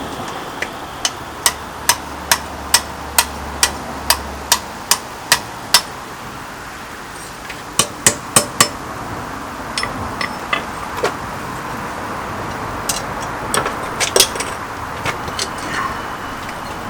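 Hand hammer striking a steel spanner on the anvil while forging it: about a dozen evenly paced blows, roughly two a second, then a pause, three quick blows, and later scattered lighter taps. A steady rushing noise runs underneath.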